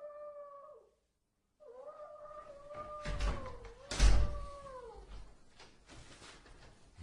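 Two wavering, meow-like animal cries: a short one at the start and a long drawn-out one after a brief pause. A heavy thump about four seconds in is the loudest sound, with knocks around it.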